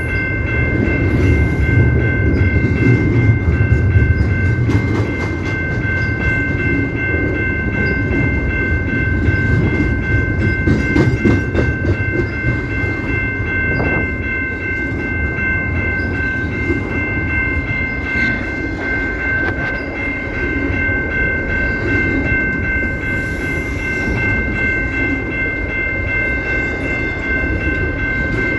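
CP Rail train rolling by, its wheels rumbling and clacking on the rails, with a steady high-pitched ringing tone held unbroken throughout; a little louder in the first third.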